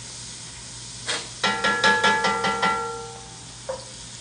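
A quick run of about eight bright, pitched chime-like notes ringing over one another and fading out, over the steady sizzle of butter melting in a pot. A single light tap comes near the end.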